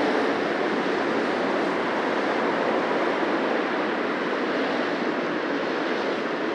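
City street traffic: cars passing close by in a steady, continuous wash of tyre and engine noise.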